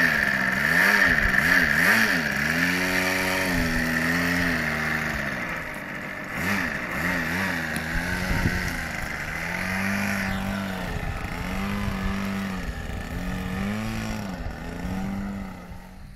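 Engine of a small Canary aircraft running on its maiden flight, its pitch rising and falling again and again as the throttle changes.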